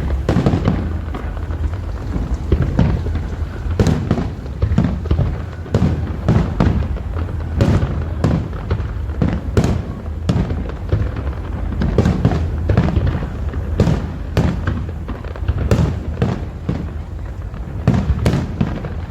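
Fireworks going off in a dense, irregular string of bangs, one or two a second, over a steady low rumble.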